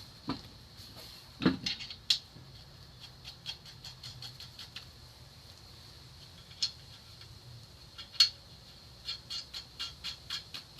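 Sharp clicks and taps from hanging the wheel on the hub and fitting its lug nuts, irregular at first, then a quick run of evenly spaced clicks, about three a second, near the end.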